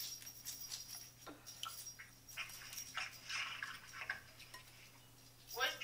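Boiled shellfish being cracked and peeled apart by hand: a run of small, irregular clicks and crackles of shell breaking and pulling away.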